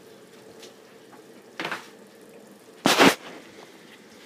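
Faint steady hiss, broken by a short scrape about one and a half seconds in and then one loud knock about three seconds in.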